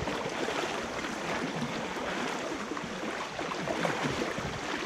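Fast floodwater rushing and churning steadily, a continuous watery hiss.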